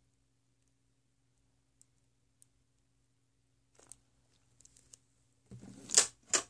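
Near silence while liquid is squeezed from a plastic bottle into a plastic tub. Then come light plastic clicks and knocks as the bottle and tub are handled and set down, ending in two sharp clacks near the end, the loudest sounds.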